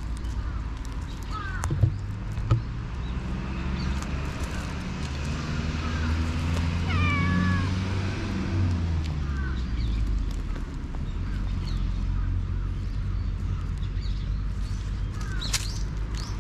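Black stray cat meowing repeatedly in short calls that bend in pitch, the loudest about seven seconds in. Two sharp knocks sound about two seconds in.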